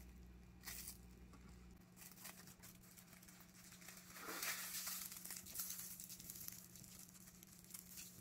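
Plastic cling wrap crinkling faintly as it is pulled over and rolled around a sandwich roll, with a longer stretch of crinkling about four to six seconds in.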